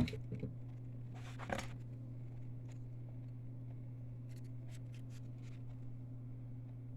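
A steady low hum, with a short rustle about a second and a half in and a few faint light ticks of handling later on.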